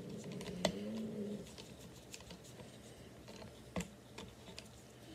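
Screwdriver and metal rifle parts clicking and tapping as the barrel band screw of a Henry lever-action .22 is tightened, with two sharper clicks, about half a second in and near four seconds in. A low, wavering hum-like tone runs over the first second and a half and comes again briefly at the very end.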